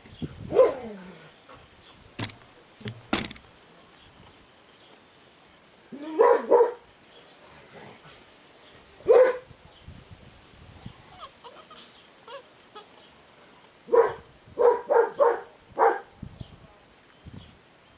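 Old English Sheepdogs barking and yipping in short, scattered bursts, then a quick run of four or five barks near the end. Two sharp knocks a couple of seconds in.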